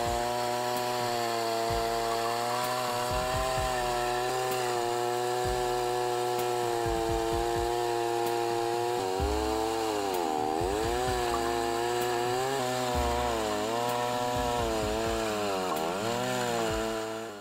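Two-stroke chainsaw running at high revs, cutting through a rack of stacked logs. Its engine note dips as the chain bites and bogs under load, then climbs back, clearly about nine seconds in and again near the end.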